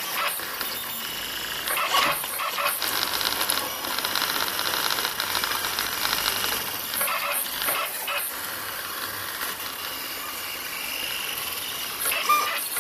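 RepRap 3D printer of the OrdBot type printing: its stepper motors whine and buzz as the print head and bed move, and the pitch shifts with each change of move.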